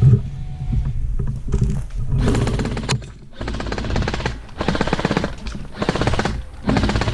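Airsoft gun firing on full auto: about five rattling bursts, each under a second long, in quick succession from about two seconds in, over low rumble from the body-worn camera.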